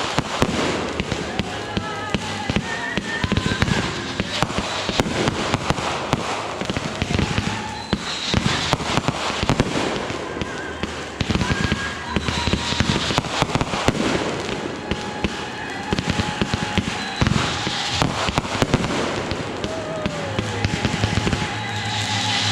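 Fireworks finale: a dense, unbroken barrage of many overlapping bangs and crackles.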